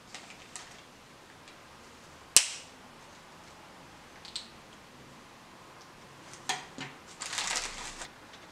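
Small hard plastic toy parts clicking as a Playmobil wheel's rubber tyre, plastic rim and hubcap are fitted together, with one sharp snap about two and a half seconds in. A short crinkly rustle, like a plastic parts bag being handled, follows near the end.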